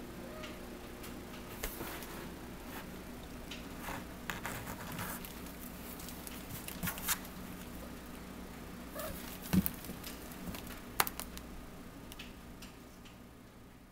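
A kitten scuffling and batting about against a cardboard box and the floor: scattered soft rustles and pattering, with a few sharp knocks, the loudest about nine and a half and eleven seconds in, over a faint steady hum.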